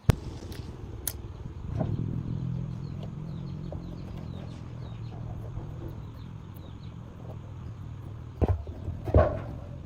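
An engine running steadily at low speed, with two sharp knocks about a second apart near the end.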